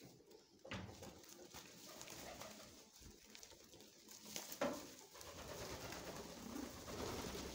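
Domestic pigeons cooing close by, a low wavering murmur, with two short sharp sounds, about a second in and again around four and a half seconds in.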